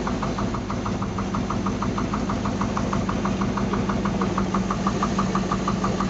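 350 V8 marine engine idling smoothly with a loud, rapid, even knock, about seven a second. The owner traces the knock to the number 6 cylinder, which has zero compression, and suspects a stuck or thrown valve or a broken valve spring there.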